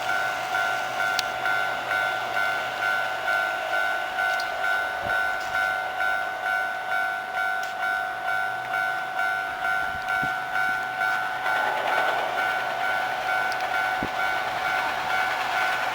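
Japanese level-crossing warning alarm ringing its electronic two-tone bell, repeating evenly about one and a half times a second: the crossing is closed for an approaching or passing train.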